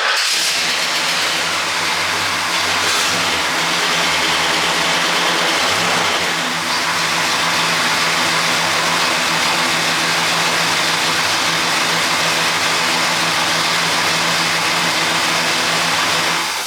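1968 Pontiac GTO's 400 V8 running at idle, with freshly cleaned plugs and new plug wires, the low engine note shifting a little in the first few seconds and then holding steady. The owner says the engine runs very rich at idle, with fouled plugs on the driver's side, and puts it down to the carburetor needing tuning.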